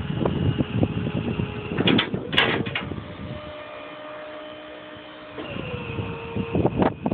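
Machinery running with a steady mechanical hum that drops in pitch about five seconds in, a few sharp clanks about two seconds in, and a low crackly rumble of wind on the microphone.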